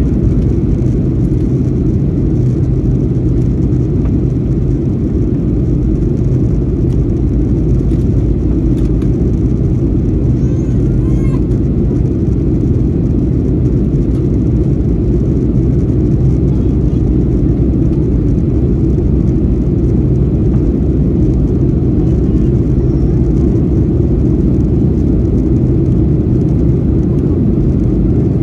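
Steady, low cabin noise inside a Boeing 737-800 airliner: its CFM56 jet engines and the airflow heard through the fuselage, with a few steady low hums under the noise and no change in level.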